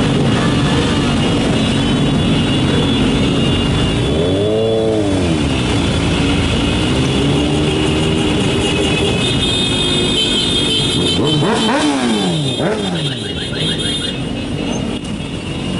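Motorcycle engines running in traffic over steady road noise. An engine revs up and back down about four seconds in, and again near the end.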